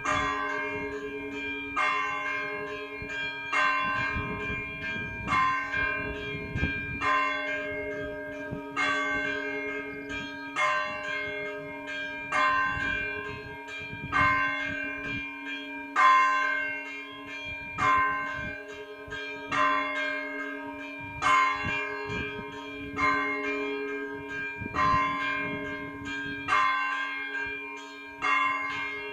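A single Orthodox church bell tolled in slow, even strokes, about one every second and three-quarters, its deep hum ringing on between strikes. This is the blagovest, the measured tolling that calls the faithful to service.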